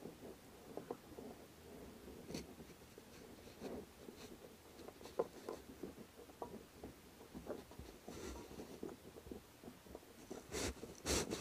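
Small metal clicks and scratchy creaks from a screw-type chain breaker being turned to press a rivet out of a motorcycle roller drive chain, with a couple of louder scrapes near the end.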